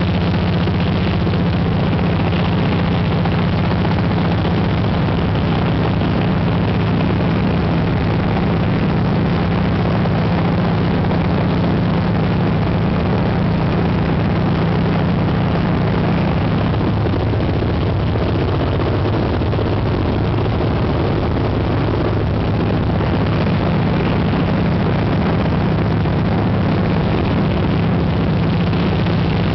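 Single-engine light propeller aircraft heard from inside the cabin: its piston engine and propeller running with a loud, steady drone.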